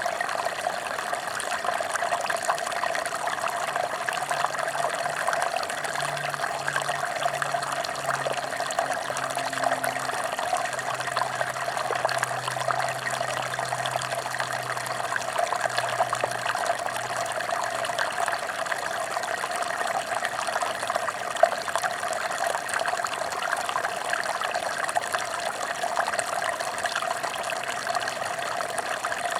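Mountain stream flowing and splashing over rocks in a steady, unbroken rush.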